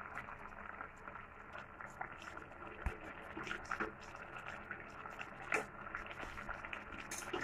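Water simmering faintly in a kadai as Malabar spinach leaves are dropped in and stirred, with a few light clicks of a spoon against the pan.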